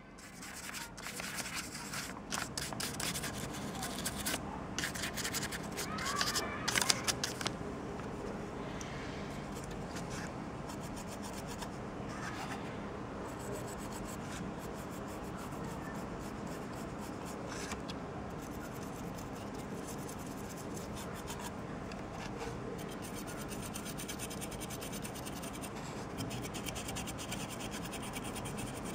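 Dry brush scrubbing: the stiff, nearly dry bristles rub and scratch in quick back-and-forth strokes over a plastic miniature's raised scales and over a paper towel. The strokes are louder and scratchier for the first seven seconds or so, then settle into softer, steady rubbing.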